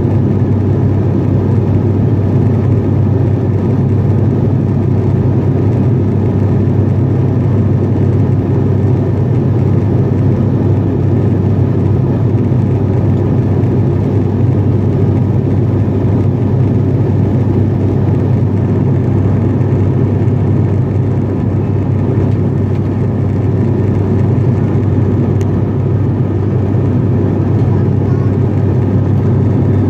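Cabin drone of an ATR 42-500 turboprop in cruise: its engines and six-blade propellers, heard inside the cabin as a steady, loud low hum with an even rush above it.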